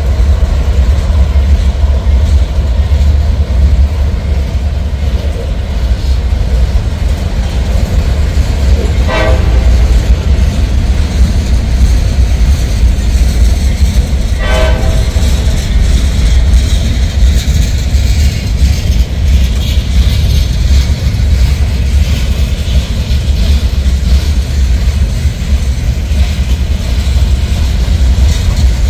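CSX freight cars, tank cars and then gondolas, rolling past on the rails with a steady, loud, heavy rumble. Two short squeals cut through, about nine and fourteen and a half seconds in.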